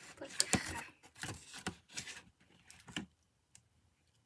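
Metal spoon scraping and clicking against a plastic mixing bowl as sticky slime is worked loose from the bowl's sides: a series of short scrapes over about three seconds.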